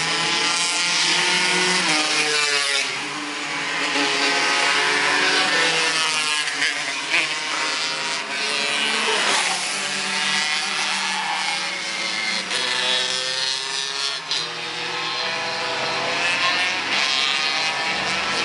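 Several racing go-kart engines at full throttle as the karts lap the circuit, their overlapping engine notes rising and falling in pitch as they accelerate, brake and pass by.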